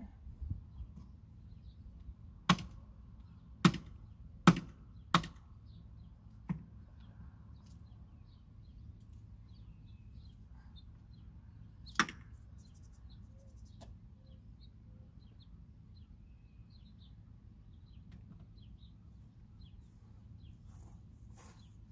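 Knife chopping through chicken: five sharp chops in about four seconds, then one more about twelve seconds in.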